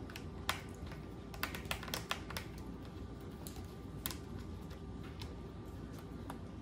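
Scattered light clicks and taps of a small tool and fingers against a laptop's bottom case while a rubber foot strip is handled: one about half a second in, a quick cluster around two seconds, and another about four seconds in.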